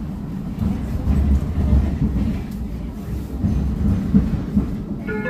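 Cabin running noise of a Bombardier Flexity 2 tram in motion: a steady low rumble of wheels on rails, with irregular low knocks.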